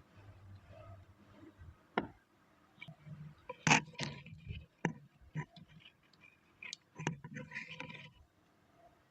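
Irregular clicks, knocks and scrapes of hands and tools handling a part, with a sharp click about two seconds in and the loudest knock a little later.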